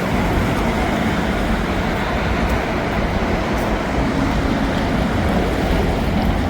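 Steady vehicle and traffic noise: an even low rumble with a hiss of road noise over it.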